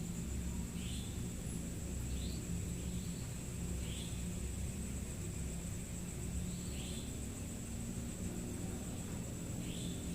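Night ambience: a steady low rumble under a steady high thin trill, with a short rising chirp every second or two.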